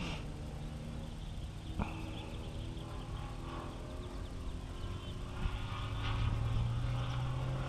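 Engine and propeller of a 35%-scale Yak radio-control aerobatic plane flying overhead. The pitch drops as the throttle comes back at the start, then the sound grows louder about six seconds in. A single sharp click about two seconds in.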